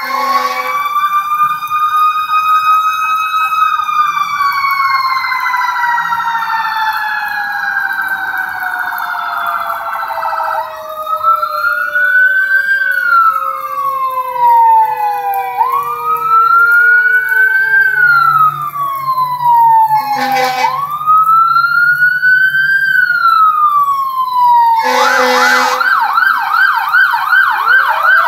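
Fire-department vehicle sirens wailing in slow rising and falling sweeps, at times two overlapping. Short horn blasts sound at the start and twice later on, and near the end a siren switches to a fast yelp.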